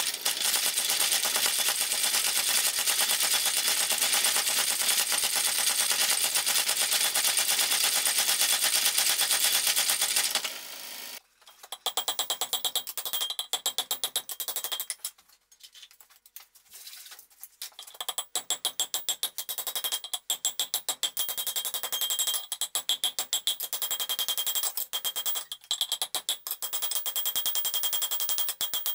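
Steel being forged: for about ten seconds a very rapid, unbroken run of hammer blows on hot steel, then a blacksmith's hand hammer striking hot steel on an anvil in quick bursts with short pauses, the anvil ringing with each blow.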